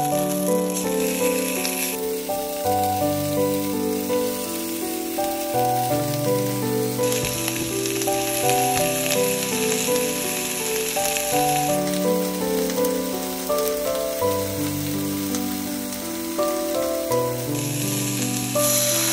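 Gentle background music with a simple melody over mackerel sizzling in a pan. The sizzling hiss rises and falls in steps every few seconds.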